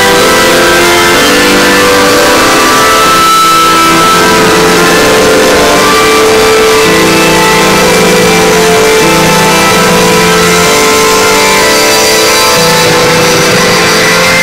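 Loud electronic dance music from a DJ set played through outdoor PA speakers, with a melody of held synth notes changing every second or so.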